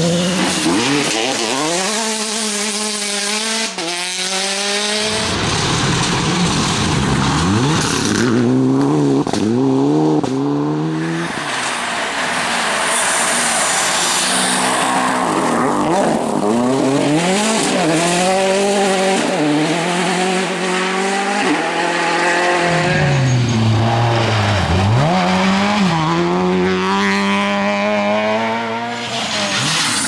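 Rally cars driven hard on a gravel stage, one after another: their engines rev up again and again and drop back at each gear change or lift, with gravel and tyre noise under them.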